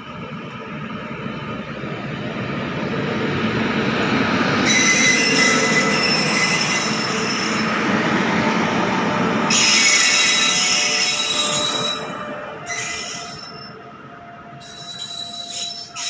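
WAP-7 electric locomotive and its passenger coaches passing close at low speed while pulling out of a station. The rumble builds as the locomotive nears and goes by. There are two spells of high-pitched wheel squeal, about five seconds in and again near ten seconds in, and the sound then eases as the coaches roll past.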